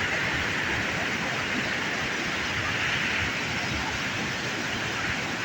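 Steady rush of water pouring out of the Kalawewa reservoir's spillway in flood.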